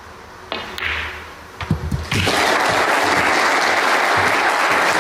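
Snooker balls click a couple of times, then about two seconds in the crowd starts applauding steadily and loudly, the applause for a century break as it passes 100.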